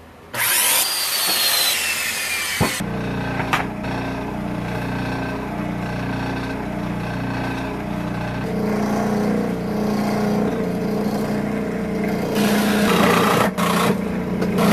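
Handheld circular saw cutting waterlogged particle board. It starts suddenly with a whine that falls in pitch as the blade bites, then settles into a steady, lower cutting sound that gets louder near the end.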